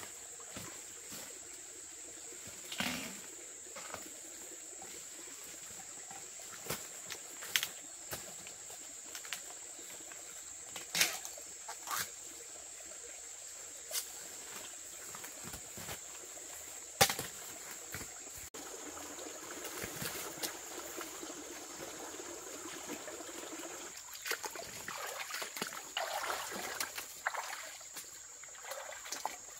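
A steady high-pitched insect drone with scattered sharp knocks and clicks; from about two-thirds of the way in, busier rustling and splashing handling noises join it.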